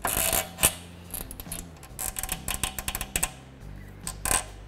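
A metal fluid line being worked out of its plastic retaining clip: a string of sharp plastic-and-metal clicks and rattles, the sharpest about half a second in, with one more click near the end.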